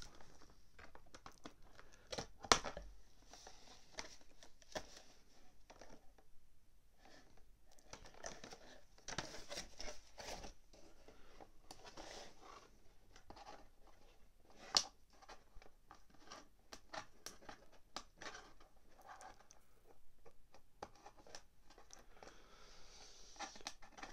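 Scissors snipping thin plastic ties on toy packaging, mixed with crinkling of a clear plastic tray and handling of the cardboard insert. The sound is a scatter of small clicks and crackles with a few sharper snaps, the loudest about two and a half seconds in and another near fifteen seconds.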